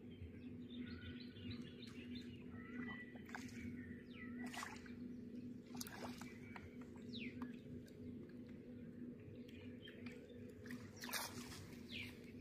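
Small birds chirping and calling on and off over a steady low background hum, with a few brief sharp sounds scattered through, the loudest about eleven seconds in.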